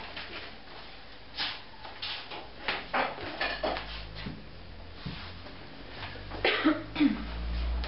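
Tableware being set down on a wooden table: a scatter of knocks and clinks as a wine bottle, glass and dishes are put in place, with a low rumble toward the end.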